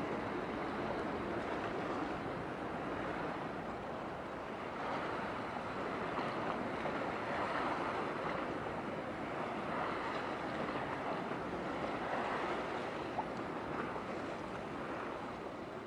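Steady wash of sea water with wind on the microphone, with one brief tick near the end.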